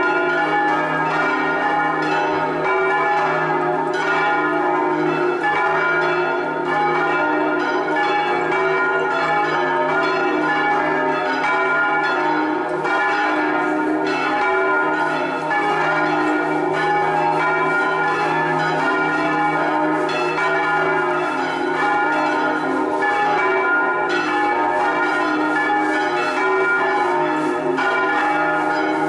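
Five swinging bronze church bells from a six-bell ring in E-flat (all but the fourth) ringing together in a full Italian-style peal rung 'a slancio', the electrically swung bells striking in steady, overlapping succession.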